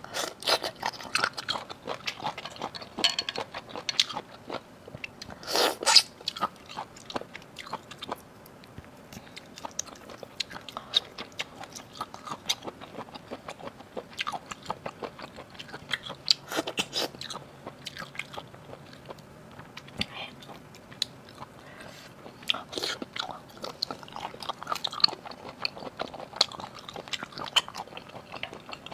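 Close-miked eating of seafood: irregular biting, crunching and wet chewing clicks, with a louder crunch about six seconds in.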